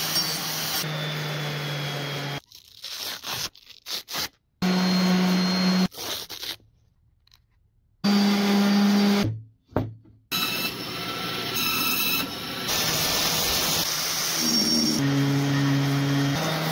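Power tools on wood in short clips cut together: an angle grinder with a sanding disc grinding the wood, then a palm sander running against it. The sound starts and stops abruptly several times, with a near-silent gap in the middle.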